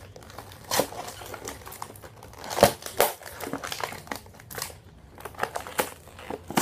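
Plastic toy packaging being torn open and crinkled by hand: irregular crackles, with two louder snaps about two and a half and three seconds in.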